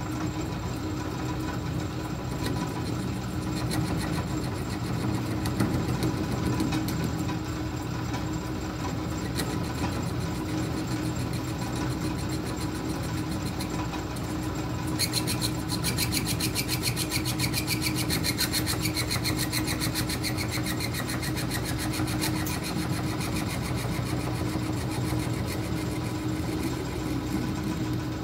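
South Bend metal lathe running with a steady motor and drive hum while the cutting tool faces the end of a brass bar, the tool rubbing and scraping on the metal. About halfway in the cut gets louder and high-pitched, with a tone in it that slowly falls.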